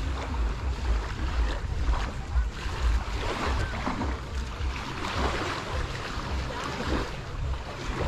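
Wind buffeting the microphone in uneven gusts, over the steady wash of small waves lapping at the shoreline.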